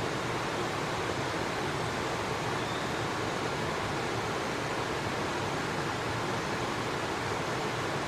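Steady rushing of flowing river water, even and unbroken.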